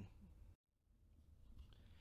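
Near silence: faint low room hum, dropping out completely for an instant about half a second in.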